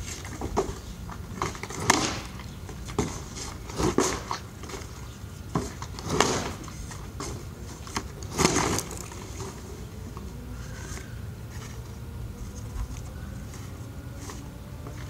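Homemade monkey fist striking a cardboard box again and again, with cardboard crumpling and scraping. There are four loud hits about two seconds apart in the first nine seconds, with smaller knocks between them, then only faint rustles and ticks.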